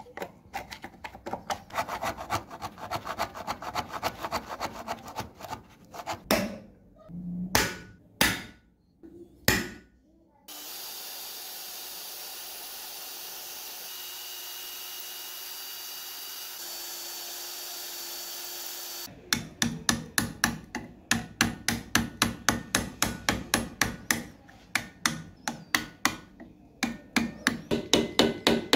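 Hammer striking metal in quick repeated blows while the old padlock is being taken apart, with a few heavier separate blows before a stretch of about eight seconds of steady hiss in the middle; the rapid hammering resumes near the end.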